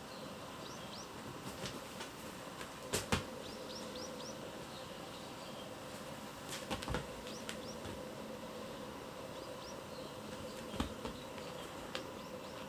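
Light taps and soft knocks of kittens playing with a cat teaser, a few seconds apart. Short runs of faint, quick, high chirps recur throughout over a steady low hum.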